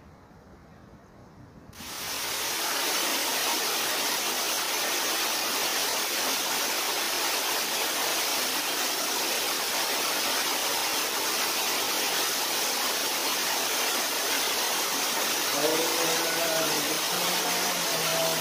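A loud, steady hiss that starts suddenly about two seconds in and holds unchanged, with voices faintly over it near the end.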